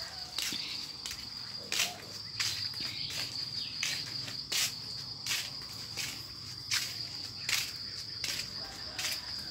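Crickets trilling steadily in a single high, unbroken tone. Short sharp taps recur about every half second to a second over it.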